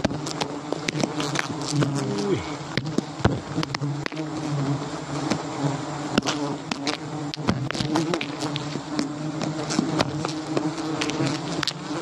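A large swarm of giant honeybees buzzing around their exposed comb as it is cut away, a steady droning hum with many sharp ticks scattered through it.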